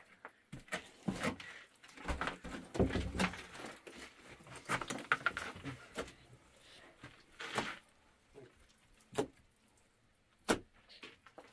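Irregular knocks, clicks and scraping in a small room, with two sharp single knocks near the end.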